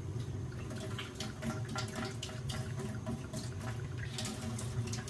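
Water dripping and trickling, with small irregular clicks, as a leaking backflow preventer is unscrewed from a boiler's water feed line, over a steady low hum.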